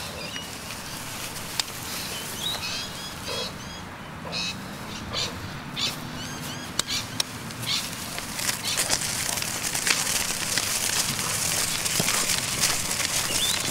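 Small birds chirping in short, repeated, hooked calls, with scattered sharp clicks. From about eight seconds in, a dense crackling rustle takes over and the chirps fade out.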